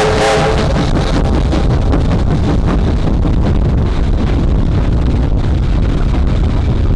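A steam locomotive's chime whistle cuts off about half a second in, followed by the steady rumble of vintage passenger carriages rolling past on the rails, with wind buffeting the microphone.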